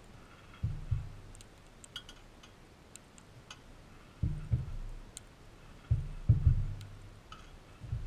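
Crimson rosella feeding at a bowl of sunflower seeds. Dull low thumps come in clusters of two or three as it shifts and pecks on the feeder, with small sharp clicks of seeds being picked up and cracked in between.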